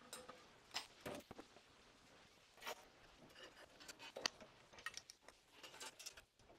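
Faint scattered clicks and light knocks of hands working on a stopped bandsaw, the sharpest about four seconds in.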